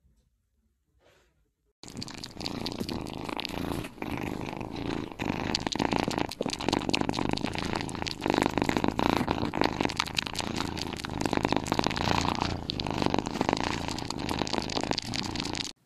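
Cat purring steadily and close up, starting about two seconds in, while her kittens nurse.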